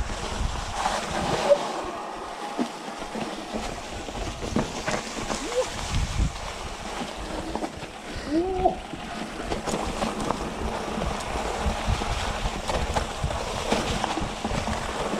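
Mountain bike riding along a dirt trail: steady tyre and wind noise with frequent rattles and knocks from the bike over rough ground.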